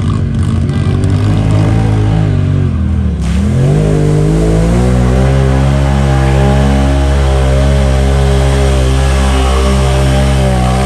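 Mud-racing vehicle's engine revving hard. Its pitch wavers, dips about three seconds in, then climbs and holds high and steady.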